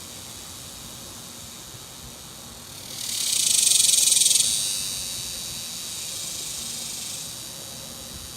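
A male cicada singing its mating call. A high buzz starts about three seconds in, is loudest for about a second and a half, then drops to a softer buzz that stops near the end.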